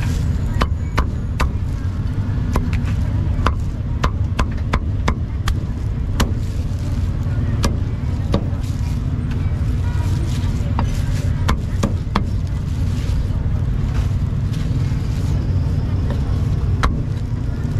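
Cleaver chopping roasted duck and pork: sharp, irregularly spaced chops, a few a second in flurries with pauses between, over a steady low rumble of street traffic.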